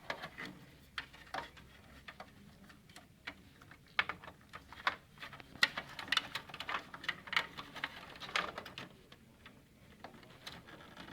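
Scattered light clicks and taps of parts being handled inside a desktop computer case as the front-panel connector is worked into place, coming irregularly, a few at a time.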